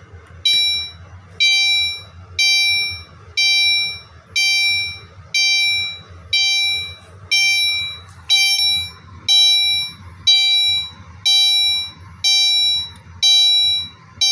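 Gentex Commander 3 fire-alarm horn strobe sounding on its chime setting: a chime repeating about once a second, each tone fading away before the next, starting about half a second in.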